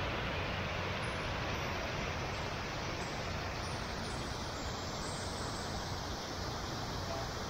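Steady rush of water from the Magic Fountain of Montjuïc's jets splashing into the basin, growing a little fainter from about three seconds in.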